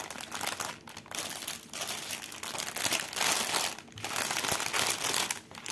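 Clear plastic packets of a cross-stitch kit crinkling as they are handled, one holding bundles of embroidery thread. The rustling comes on and off, with short pauses about a second in and near four seconds.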